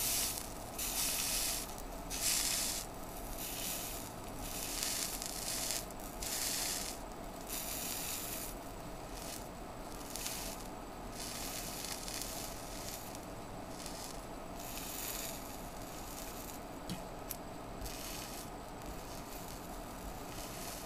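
Bologna sizzling on a bare Intel Celeron 1.8 GHz Willamette CPU with no heatsink, in irregular spurts of hiss that grow fainter and sparser toward the end as the overheating chip dies and puts out less heat.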